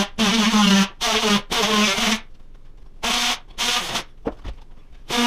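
A handheld power tool run in short trigger bursts, about six in all, each half a second to a second long with a steady buzzing pitch; the longest and loudest come in the first two seconds.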